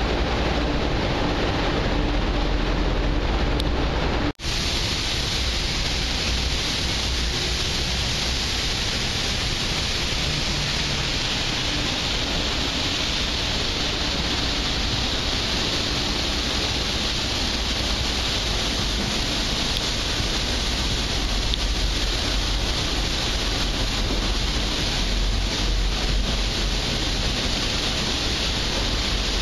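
Steady rushing noise of wind on the microphone and water along the hull of a ferry underway, with a faint low hum. The sound breaks off for an instant about four seconds in, then the rushing goes on, hissier than before.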